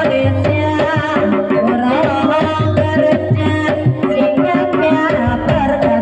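Live Javanese ebeg accompaniment music: hand drums (kendang) playing fast, busy patterns over ringing pitched percussion, without a break.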